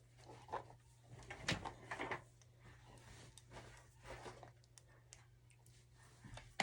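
Quiet handling sounds of a clip-in hair extension being put into a child's hair: a few faint soft knocks and rustles over a steady low hum.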